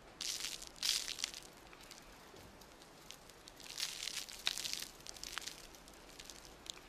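Faint crackling of burning wood in irregular clusters of sharp, dry pops: a cluster about a second in, more around the middle, and a single pop near the end.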